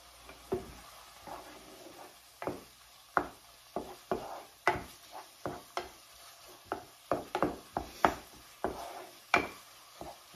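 Wooden spatulas clacking and scraping against a skillet in an irregular string of short knocks, denser after the first couple of seconds, as thin-sliced beef with onions and peppers is stirred and broken up.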